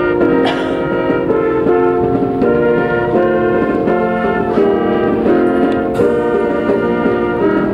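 Brass band playing a slow piece in sustained chords, the notes changing about once or twice a second.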